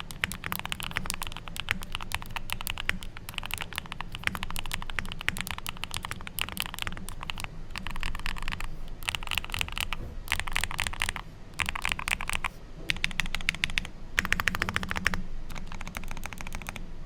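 Fast typing on a Neo65 Core Plus custom mechanical keyboard with Gateron Oil King linear switches, a polypropylene plate, full foam and KBS Lucy keycaps: rapid key presses come in runs of a second or two, separated by brief pauses.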